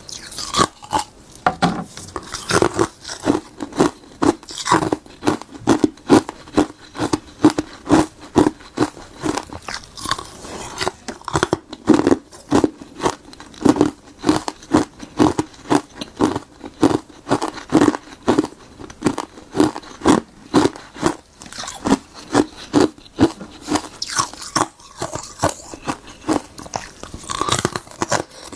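Close-miked biting and chewing of frozen tartary buckwheat tea ice: a continuous run of loud, brittle crunches, several a second, as the ice cracks between the teeth.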